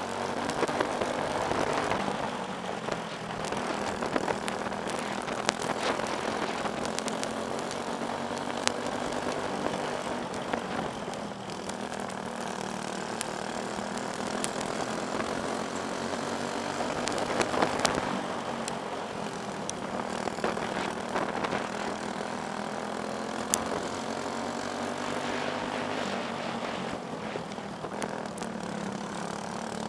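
Briggs & Stratton Animal single-cylinder four-stroke kart engine running hard at racing revs, its pitch dropping a few times through the turns and climbing again on the throttle. Other karts' engines run close by, with sharp clicks here and there.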